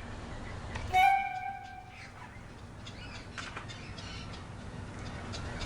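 A single steady, horn-like tone about a second in, lasting about a second, over a low steady background noise.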